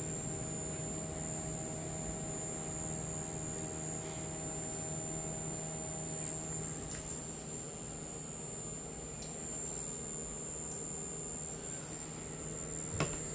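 Stirling cryocooler and the PC's cooling fans running steadily in a metal server case: a low hum with several steady tones and a constant high-pitched whine. The builder puts this high harmonic noise down to the cooler's H-bridge drive, which makes its 500 Hz sine wave by switching at about 7.8 kHz.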